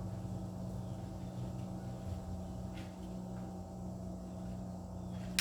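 Steady low electrical hum of room noise, with a faint tick about three seconds in. A sharp click at the very end, a dog-training clicker being pressed to mark the puppy's behaviour.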